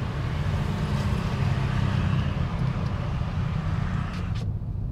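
Road noise heard inside the cabin of a moving Hyundai Stargazer X: a steady low tyre and engine rumble under a hiss of road and wind noise. The hiss drops away sharply near the end, leaving mostly the rumble. This is a check on how well the cabin is sealed, and the tyre noise is not very loud.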